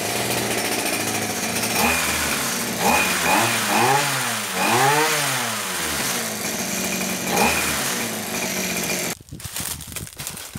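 Small two-stroke engine driving a chainsaw bar through an angle-grinder gearhead, running fast and revved up and down several times in quick succession around the middle, then holding steady. It cuts off abruptly about nine seconds in, leaving scattered rustling and crackling.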